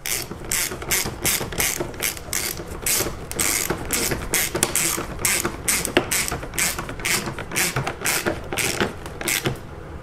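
Hand ratchet clicking in quick repeated strokes as it drives a Torx T30 screw to tighten a car's interior door trim panel.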